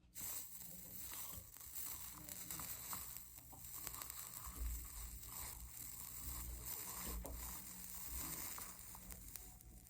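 Soldering iron melting 60/40 solder along copper-foiled stained-glass seams, the flux sizzling and crackling. It starts suddenly and stops just before the end, with a few soft knocks in the middle.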